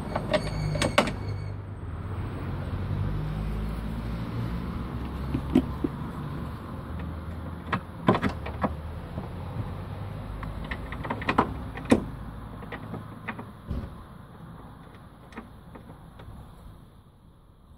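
Ford Transit double passenger seat's swivel base being worked by hand as it is turned round: scattered metallic clicks and knocks over a low rumble that fades in the last few seconds.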